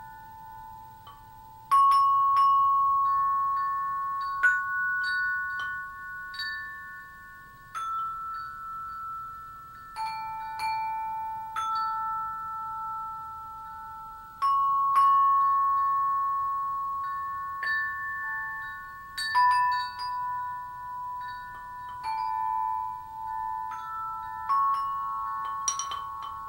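Slow background music of chime-like struck tones: single notes ring out and overlap, a new one every second or two.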